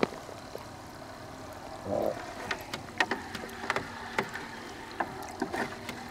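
Small mesh dip net sloshing and splashing through a bucket of water to scoop live bait fish, with scattered sharp splashes and knocks against the bucket, loudest about two seconds in.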